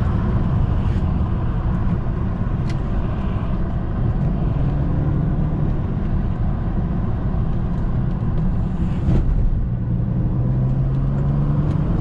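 A 2008 BMW 335i's twin-turbo inline-six engine and tyres heard while driving: a steady low road rumble, with the engine note rising gently in pitch twice as the car pulls. A sharp click near three seconds in and a brief whoosh about nine seconds in.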